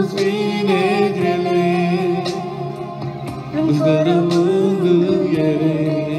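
A Romanian Christian song: a singer holds long, wavering notes over instrumental backing. The melody eases off briefly around the middle, then resumes.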